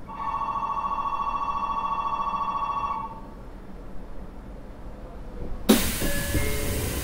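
Station departure bell ringing: a steady, rapidly pulsing electric bell for about three seconds, then it stops. A couple of seconds later the train's doors close with a sudden thud and a loud rush of air.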